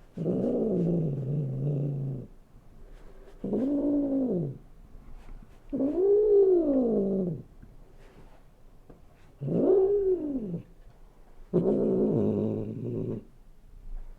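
Cat meowing: five drawn-out, fairly low meows with short pauses between them, the middle three rising and then falling in pitch, the first sliding down at its end.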